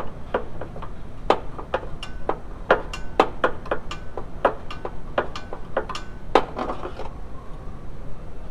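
Hand wrench working a bolt on the shifter linkage bracket under the car: a run of sharp metallic clicks, about two or three a second, that stops about seven seconds in.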